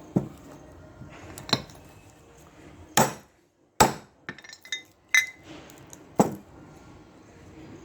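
Metal tools and parts knocking and clinking during scooter front wheel bearing work: six sharp knocks at uneven intervals, with a few lighter clicks in between.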